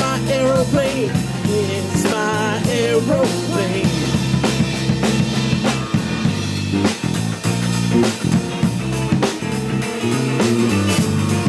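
Live trio of electric bass, drum kit and electric guitar playing an instrumental funk-rock passage. A lead line with wavering, bending notes rises over the groove in the first few seconds, then the drums and bass carry on with steady hits.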